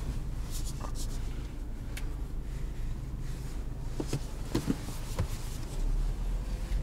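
Cabin noise of a BMW 318i (G20) on the move: a steady low engine and road hum with a few light clicks. The rumble grows louder near the end.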